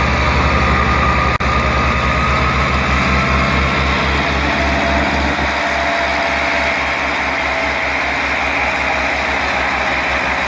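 Diesel tractor engine working hard with an even low throb, pulling an overloaded sugarcane trailer so heavy that the tractor's front wheels are lifted off the ground.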